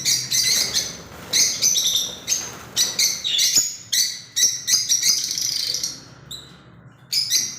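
Lovebirds chirping: a rapid run of short, high chirps, dropping away briefly about six seconds in before starting again.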